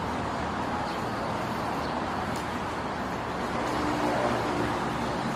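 Steady urban background noise: a distant traffic hum.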